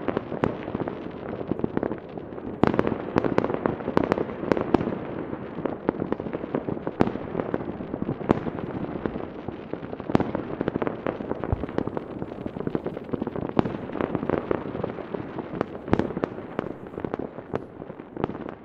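Many fireworks going off at once across a town: a dense, continuous rumble of overlapping bangs and crackles, with sharper single bangs standing out every second or so.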